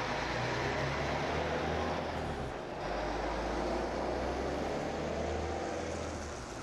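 Coach bus's diesel engine pulling away and accelerating, a steady low drone with a short break in the engine note about two and a half seconds in, easing off slightly as the bus moves away.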